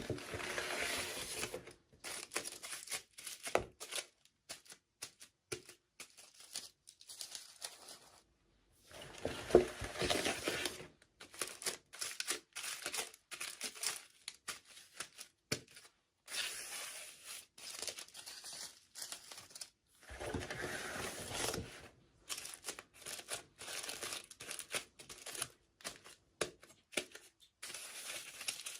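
Toy doll packaging being torn open and crinkled by hand, in short irregular bursts of tearing and rustling with a few longer stretches, cutting to silence in between.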